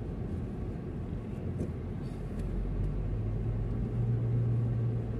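Car engine and road noise heard from inside the cabin while driving: a steady low hum that grows a little stronger about three seconds in.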